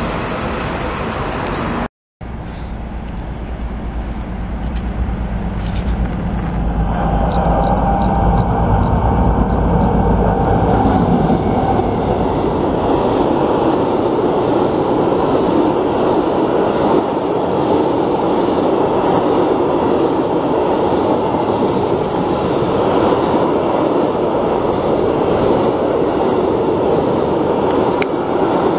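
Freight train wagons passing close by at speed: a steady rumble and rattle of wheels on the rails. It breaks off briefly about two seconds in, then swells over the next several seconds with a low drone that fades away, and holds steady.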